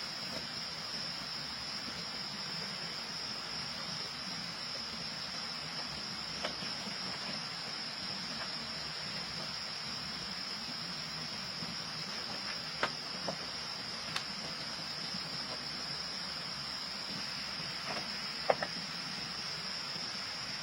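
Steady, high-pitched chorus of trilling insects such as crickets, with a few faint clicks, the sharpest near the end.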